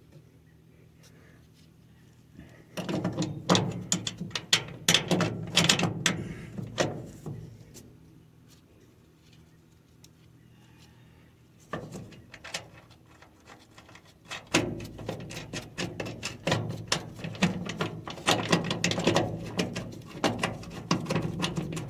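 Metal clinking, knocking and rattling of bolts, nuts and parts being handled while bolting a bearing flange onto the haybine frame. The clatter comes in two spells, starting about three seconds in, pausing for a few seconds in the middle and then resuming.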